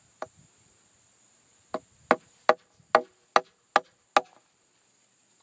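Hammer driving a 3.5-inch galvanized nail into fence wood: a single tap, then seven steady blows about two and a half a second.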